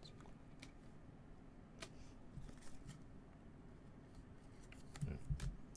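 Faint clicks and taps of rigid clear plastic card holders handled by gloved hands, with a few soft knocks about five seconds in.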